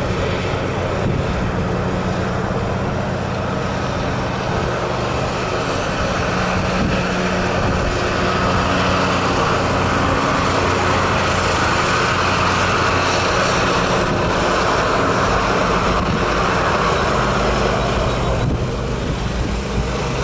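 Jet engines of an Airbus A330 on landing approach: a continuous roar that swells through the middle and falls away shortly before the end as the airliner touches down, over a steady low hum.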